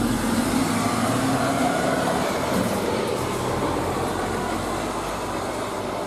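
Concrete pump truck's diesel engine running as the truck drives slowly by, a steady engine drone under street noise.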